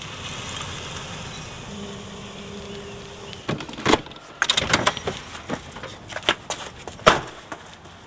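A car's steady running hum, then a quick run of clicks and knocks as the automatic gear lever is shifted and keys are handled, ending in a single loud slam about seven seconds in as the car door shuts.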